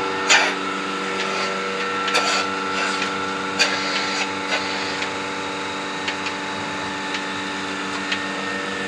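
Portable bucket milking machine's vacuum pump running with a steady hum while the teat cups are fitted to a cow's udder, with a few irregular clicks and knocks from the cups and fittings, the loudest about half a second in.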